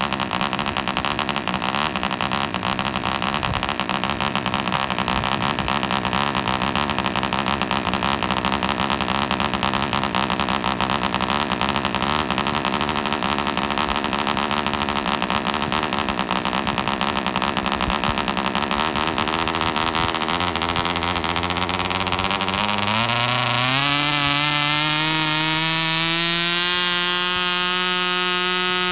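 PAW 1 cc twin ball-raced model diesel engine turning a 7x4 nylon propeller, first running at a lower speed with a less even note. About 20 seconds in it is opened up, and the pitch climbs over a few seconds to a steady high-speed run near the end.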